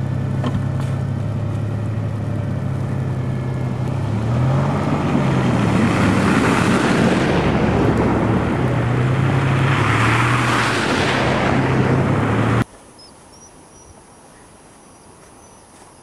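Stuck pickup truck's engine revving while its wheels spin in snow. The pitch rises twice, each time with a rushing hiss of spinning tyres throwing snow. It cuts off abruptly about 13 s in, leaving only a faint background.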